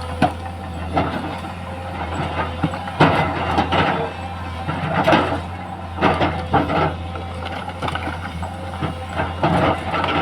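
LiuGong 922 hydraulic excavator running steadily, with irregular clattering and scraping, several times, as it works.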